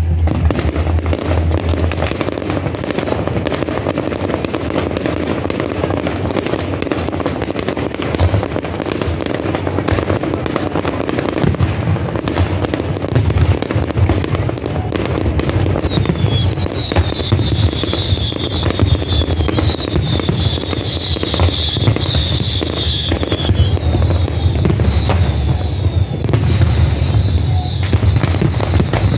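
Fireworks display: aerial shells bursting and low fountains crackling in a dense, continuous barrage. A high wavering whistle runs through the second half.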